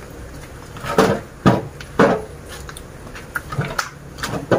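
Coconuts dropped one after another into a wheelbarrow, giving about five separate heavy knocks, the loudest three close together in the first half.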